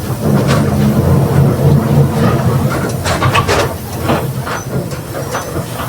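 Mercedes-Benz OF 1721 bus driveline running under way, with a steady low growl from the differential. A burst of clattering knocks about three seconds in.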